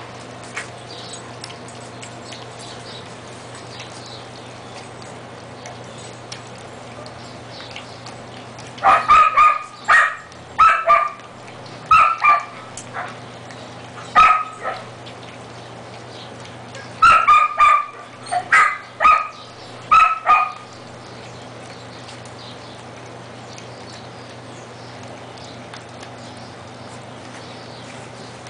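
A dog barking in two bouts of short, high barks, about half a dozen starting some nine seconds in and about half a dozen more a few seconds later. Between the bouts, faint sounds of husky puppies eating soft food from a metal pan.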